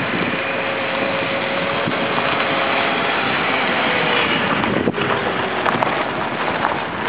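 Jet aircraft engines running with a steady whine under a loud rush of noise, with wind buffeting the microphone.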